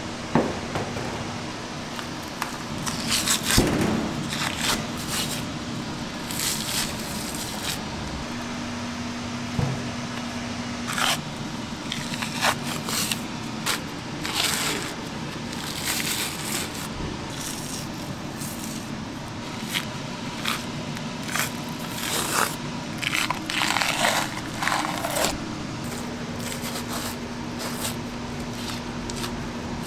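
Knife work and tearing on a rack of beef short ribs: irregular scraping and peeling strokes as the membrane and fat are stripped from the rib plate on a plastic cutting board, over a steady background hum.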